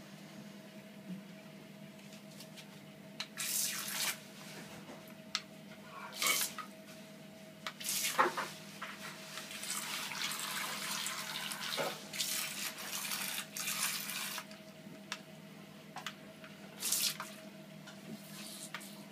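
Water splashing and sloshing in a bathtub in short bursts around a small toy submarine, over a steady low hum.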